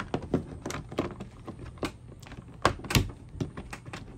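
Scattered clicks and knocks of hands pushing electrical wiring into a plastic in-wall box in drywall and fitting its plastic cover plate. The loudest knocks come right at the start and again about three seconds in.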